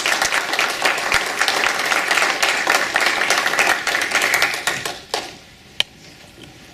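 A small audience applauding in a standing ovation. The clapping dies away about five seconds in and is followed by a couple of sharp knocks.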